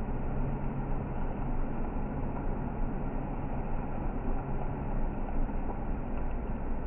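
A vehicle's engine running at a steady low hum, heard from inside the cab while held up at walking pace.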